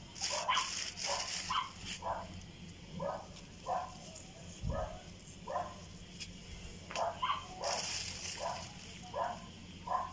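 A dog barking over and over in short barks, about one and a half a second, with a short pause near the middle. Brief rustling at the start and again near the end.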